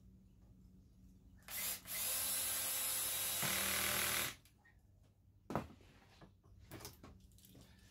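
Cordless drill driving a pocket-hole screw into a wooden door frame: a short blip, then a steady run of about two and a half seconds that changes pitch partway and stops as the screw seats. A few short knocks follow.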